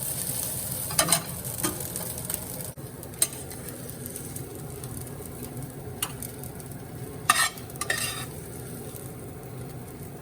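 Ketchup fried rice sizzling in a hot pan as it is stir-fried, with a few sharp scrapes and clicks of the spatula against the pan.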